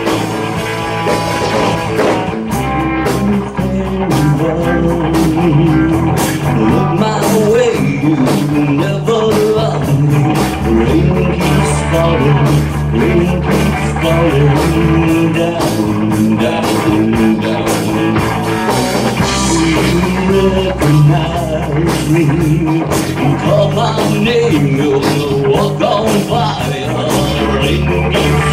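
Live rock band playing: electric guitar, bass guitar and drums, with a steady drum beat and a wordless stretch in the song.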